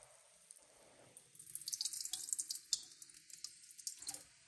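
Water splashing and dripping into a stainless steel kitchen sink, heaviest from about a second and a half in to about three seconds, then a few scattered drips, as rinse water is run off washed rice.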